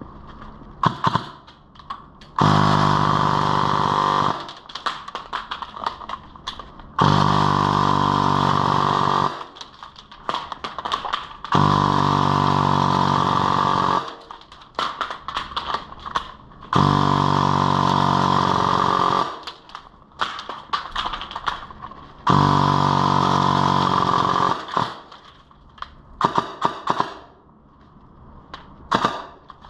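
Kriss Vector airsoft electric gun with a brushless motor and dual-sector gear firing full-auto at about 50 rounds a second: five bursts of about two seconds each, each one emptying a 95-round magazine. Between bursts, clicks and rattles of handling.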